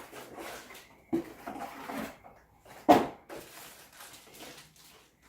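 Handling noises while unpacking a laptop box: rustling and shuffling of the packaging, with a sharp knock a little after one second and a louder single knock about three seconds in.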